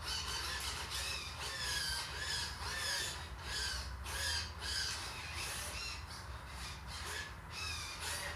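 Short, repeated whining chirps, roughly two a second, each bending up and down in pitch, from the small servos and linkages on a model autogyro's rotor head as it is worked back and forth. A steady low hum runs underneath.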